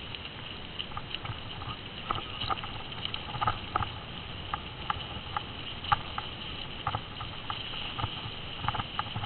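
Bicycle rolling over a rough dirt forest trail: irregular clicks and knocks as the bike and camera rattle over bumps, over a steady high-pitched drone.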